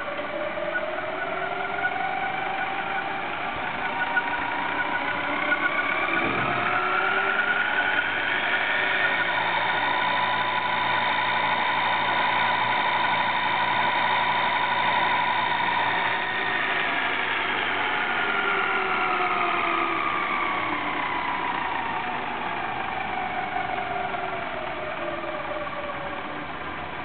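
Laboratory Drais mixer's electric motor driving stainless steel T-blades, its whine rising in pitch for the first nine seconds or so as the speed goes up. It holds steady at top speed, then falls again from about seventeen seconds as it slows.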